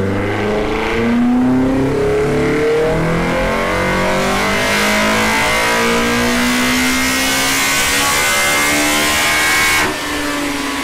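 Toyota 4A-GE 1.6-litre inline-four with individual throttle bodies making a wide-open-throttle pull on a chassis dyno, its note climbing steadily in pitch as the revs rise. Near the end the sound cuts off sharply as the throttle is closed.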